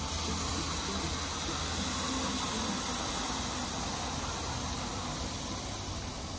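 Plant-based burger patties sizzling on the hot grate of an electric infrared grill, a steady hiss as they start to cook, with a brief bump at the start as the second patty is laid down.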